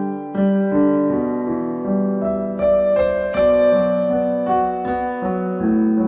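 Background piano music: slow notes and chords, each held for a moment before the next.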